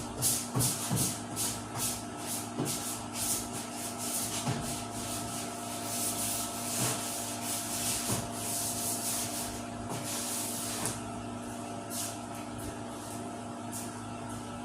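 Sandpaper rubbed by hand over a 1997 Buick Riviera trunk lid, the final sanding before its silver base coat: quick back-and-forth strokes, about three a second at first, then longer, slower strokes after about six seconds. A steady low hum runs underneath.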